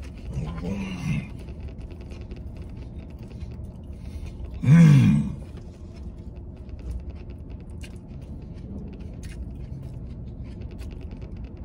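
A man chewing a big mouthful of burger, making two muffled vocal sounds through the food: a short one about a second in and a louder one about five seconds in, over a low steady rumble.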